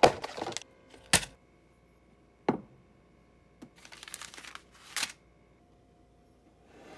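A cardboard box of instant oatmeal and its paper packet being handled on a countertop: several sharp knocks and taps, with a stretch of paper rustling about four seconds in.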